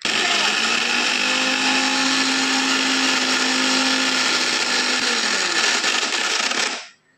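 Electric mixer grinder blending apples into juice in its stainless steel jar: switched on abruptly and running at full speed with a loud steady whirr. About five seconds in its hum sinks in pitch, and the motor cuts off near the end.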